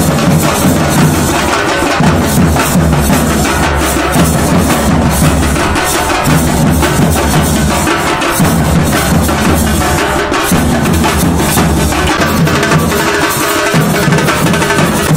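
A group of drummers beating barrel drums with sticks in a dense, continuous rhythm, the deep drum beats and sharp stick strokes overlapping.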